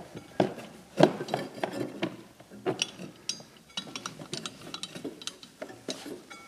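Irregular metallic clinks and knocks as a rubber drive belt is worked by hand around a Ski-Doo snowmobile's clutch sheaves, with a sharp knock about a second in.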